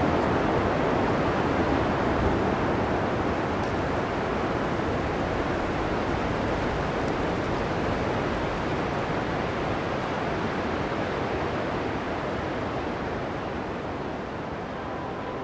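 Steady rushing of a creek's flowing water, an even noise that fades slowly toward the end.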